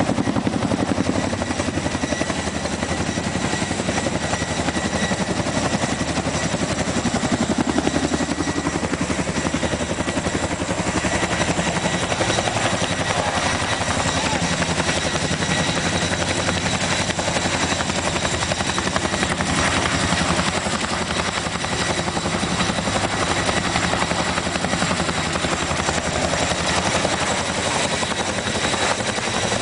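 Boeing CH-47 Chinook tandem-rotor helicopter flying low and close, its twin rotors making a rapid, continuous chop over a steady high turbine whine. The sound holds at about the same loudness throughout.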